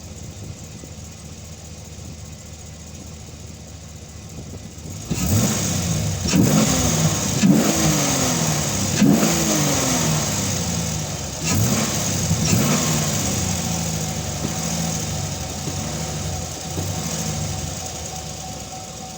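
Camaro SS V8 engine, fitted with a new K&N air filter, idling steadily, then revved with about five quick throttle blips, each rising sharply and falling back slowly, before settling back to idle.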